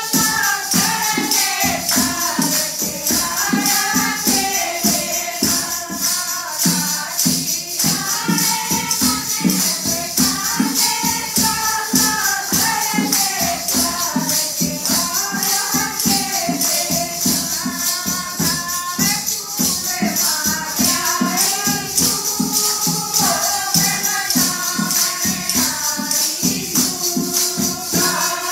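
A group of women singing a Hindu devotional bhajan together in unison, the melody rising and falling in phrases, over a steady fast beat of hand percussion.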